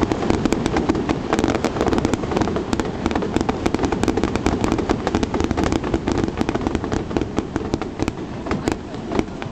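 Aerial fireworks crackling and popping in a dense, continuous barrage of many rapid pops. The barrage thins out and gets somewhat quieter over the last couple of seconds.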